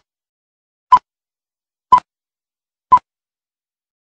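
Film-leader countdown beeps: a short, high, pure beep once each second, stopping about three seconds in.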